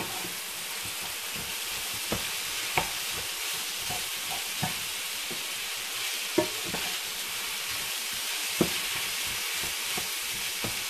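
Leftover rice sizzling as it is stir-fried in a nonstick frying pan with a wooden spatula. A steady hiss is broken by the spatula knocking and scraping against the pan every second or two.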